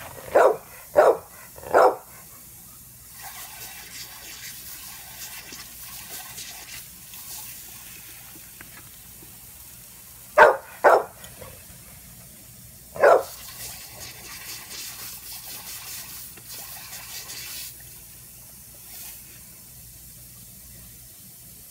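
A dog barking: a quick run of barks in the first two seconds, two more about ten seconds in, and one at about thirteen seconds. Between the barks, a lawn sprinkler's water spray hisses in stretches of a few seconds.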